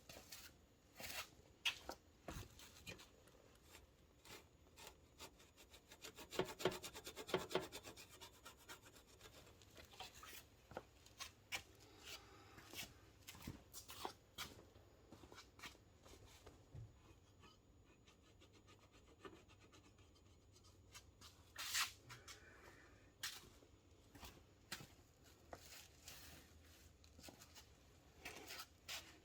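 A cloth being rubbed over a mounting area on the motorcycle to clean it so double-sided adhesive tape will stick, with scattered light handling clicks and taps. A run of fast rubbing strokes comes about six to eight seconds in.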